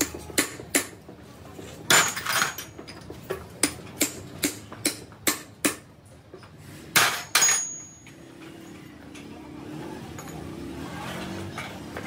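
Hammer striking metal in a quick run of blows, about two a second, some ringing, during a truck gearbox rebuild; the two loudest blows fall about seven seconds in. The hammering stops about eight seconds in, leaving a low, steady background noise.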